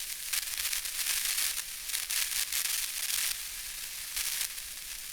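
Crackling, hissy rustle, all in the high range, that swells and fades unevenly.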